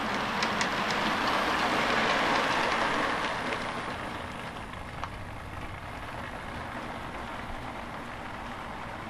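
Model railway train, a tank locomotive hauling a rake of kit-built GWR coaches, running along the track: a steady rumbling rush with a few sharp wheel clicks over the rail joints, loudest for the first three seconds, then fading as it draws away.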